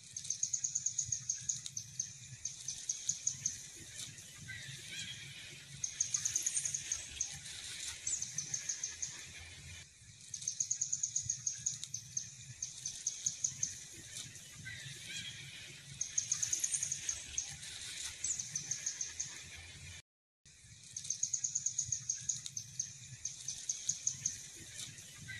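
Outdoor nature ambience: short runs of rapid, high-pitched clicking trills, with a few bird chirps over a low steady hum. The same stretch repeats about every ten seconds, cutting out briefly once near the end.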